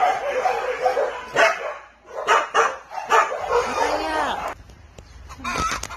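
Several dogs barking and yipping together, a dense overlapping chorus at first, then separate sharp barks and a few higher rising-and-falling yelps, with a short lull before more barks near the end.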